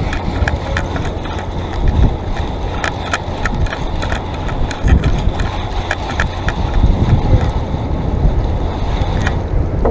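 Wind buffeting a chest-mounted GoPro's microphone: a steady, loud low rumble. Scattered small, sharp clicks come and go over it.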